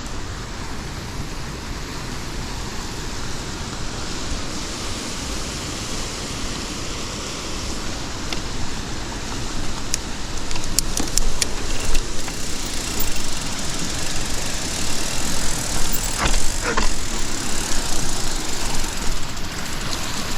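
Mountain bike being ridden along a forest trail: a steady rushing noise of tyres rolling and the ride, growing louder and rougher about halfway through, with a few sharp clicks and rattles.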